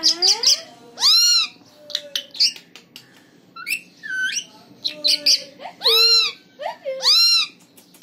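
Alexandrine parakeet calling: several loud arched squawks that rise and fall in pitch, mixed with quick short chirps and clicks.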